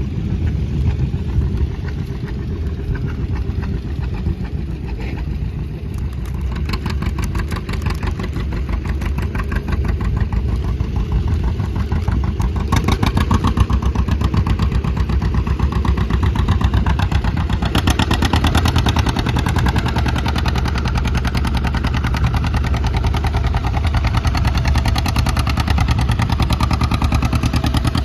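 An engine running steadily, its firing heard as a rapid even beat, getting louder about halfway through.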